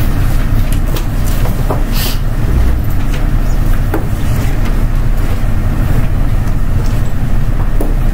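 Steady low rumble of room noise picked up by the meeting-room microphones, with scattered short knocks and paper rustles as people get up from the tables and gather their papers.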